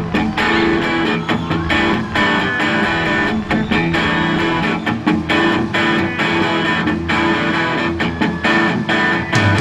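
Live rock music led by a Telecaster-style electric guitar playing a rhythmic picked and strummed figure through an amplifier. A deep bass note comes in near the end.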